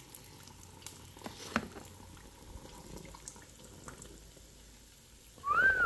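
Hot cooking oil frying food: a soft steady sizzle with a few sharp pops. Near the end comes a short high cry that rises and then falls in pitch.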